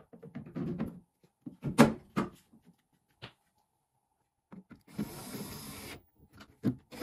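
Plastic tail-light housing handled and pressed into place against the car body, with knocks and one sharp clunk about two seconds in. Then a cordless drill with a socket extension runs for about a second, and starts again near the end, driving on the nut that holds the light.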